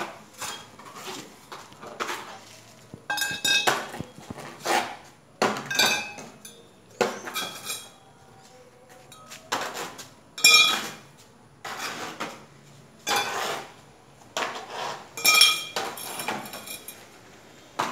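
Metal frame-pool tubes knocking and clinking against each other and the concrete floor as they are picked up and laid down, in a dozen or so separate knocks, several ringing briefly.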